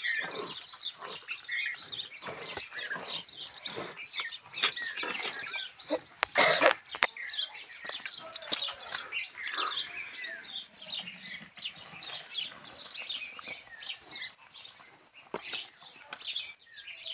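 Many small birds chirping and twittering together, with a short louder noise, a clatter or rustle, about six and a half seconds in.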